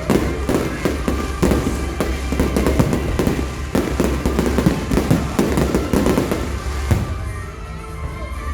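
Fireworks going off in a rapid, dense string of bangs and crackles, thinning out about seven seconds in. Music plays underneath.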